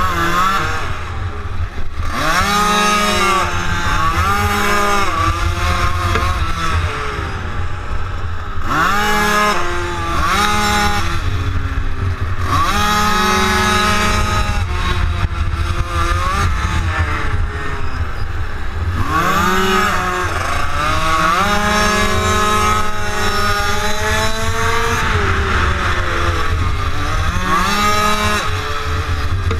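Minimotard engine being ridden hard, revving up and falling off again and again as it accelerates and slows through the corners. A steady low wind rumble on the on-board microphone runs underneath.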